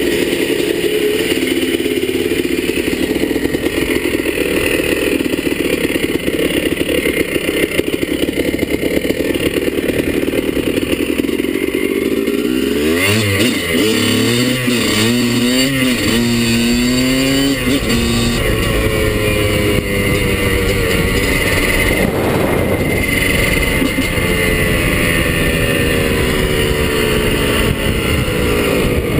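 Kawasaki KDX200 two-stroke single-cylinder dirt bike engine with a straight-through, fiberglass-packed silencer, running under way. About halfway through it rises and falls in pitch several times as it is revved through the gears, then settles to a steadier note.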